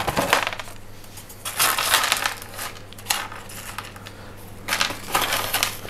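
Pumice stones clattering and crunching against a plastic net pot and a plastic tray as they are pressed in and gathered up by hand, in three separate bursts.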